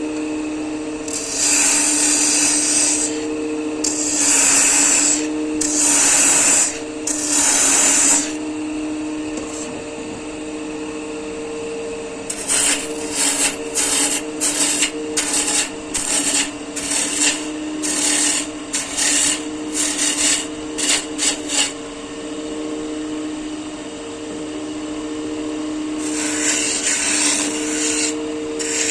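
A wood lathe runs with a steady motor hum while a tool is pressed against the spinning wood, giving hissing cuts. There are four long passes, then a quick series of short touches, then another long pass near the end.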